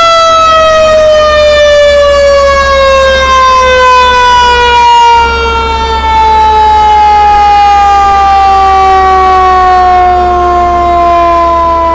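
Fire engine siren sounded once: the pitch winds up sharply, then winds down slowly and steadily over about twelve seconds.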